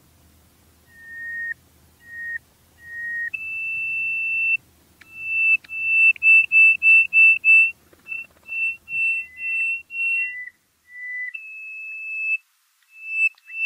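A whistled tune of clear single notes, starting about a second in: three short notes, a long higher held note, then a quick run of short repeated notes and further short phrases.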